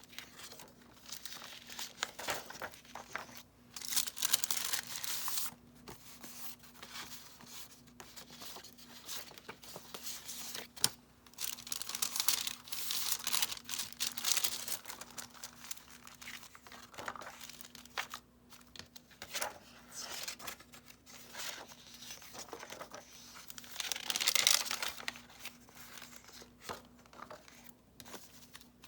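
Paper pages of a junk journal (mixed sheets, old book pages and coffee-dyed paper) being handled and turned, rustling and crinkling in bursts every few seconds, with a few sharp clicks. A faint steady hum runs underneath.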